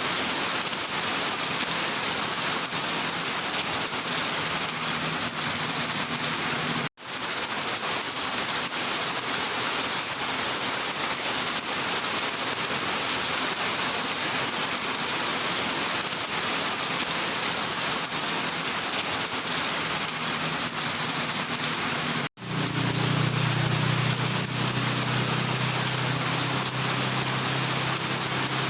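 Steady rain falling, an even hiss that cuts out for an instant twice. A low steady hum joins after the second break.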